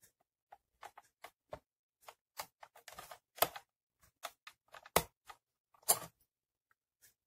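Sharp plastic clicks and taps as the buttons are pried out of a HOLT HT-IR steam iron's plastic handle with a thin screwdriver, with three louder snaps in the second half as the latches give.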